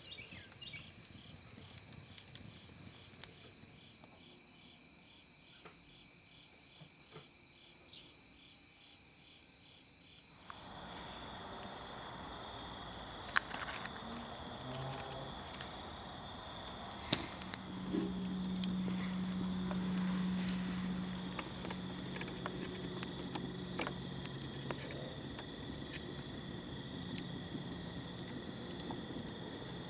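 Insects chirping in a fast, pulsing evening chorus. About ten seconds in this gives way to a steadier high insect tone with scattered small clicks and handling sounds, and a low hum for a few seconds past the middle.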